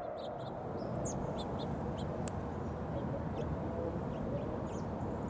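Birds chirping now and then over a low steady rumble. At the very start, the echo of the Whelen WPS 4004 siren's voice announcement dies away.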